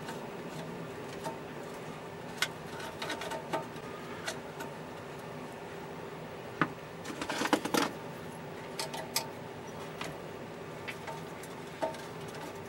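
A nut driver turning nuts on a steel TV chassis: scattered small metal clicks and scrapes, busiest about seven to eight seconds in, over a steady background hum.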